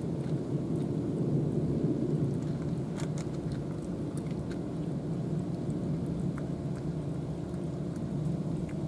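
A cat eating wet food from a plastic tray, with faint scattered clicks of chewing over a steady low rumble.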